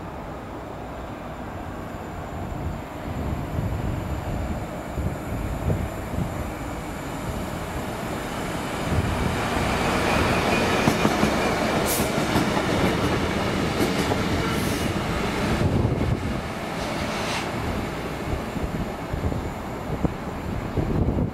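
A pair of coupled Class 66 diesel-electric locomotives, with their two-stroke V12 engines running, pass close by on the track. The engine note and wheel-on-rail rumble build to a peak as the locos go past, then ease as they draw away. There are a few brief high-pitched squeaks from the wheels.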